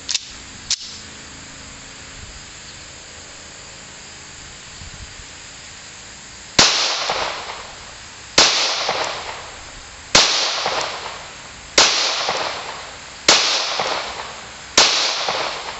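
Six shots from a Taurus PT745C Millennium Pro .45 ACP pistol, fired one at a time about a second and a half to two seconds apart, each sharp bang followed by an echo dying away over about a second. Two short clicks come in the first second, before the shooting starts.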